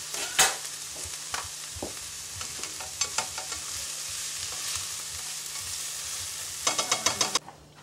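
Chopped bell peppers, scallions and garlic sizzling in a sauté pan as a utensil stirs them, with scattered clicks and scrapes of the utensil against the pan. Near the end comes a quick run of clicks, then the sound cuts off suddenly.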